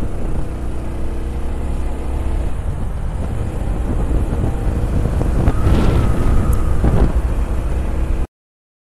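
Motorcycle running along the road, a steady engine and road noise with a strong low rumble. A steady higher tone sounds for about a second and a half past the middle, and the sound cuts off suddenly near the end.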